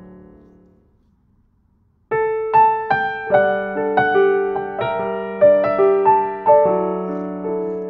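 Background piano music. A held chord fades out in the first second, there is a short silence, and a new melody of single struck notes over sustained bass notes begins about two seconds in.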